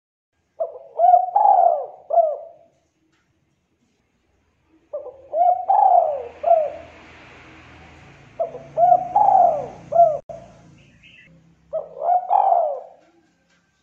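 A spotted dove cooing four phrases a few seconds apart, each a quick run of three or four rounded coos.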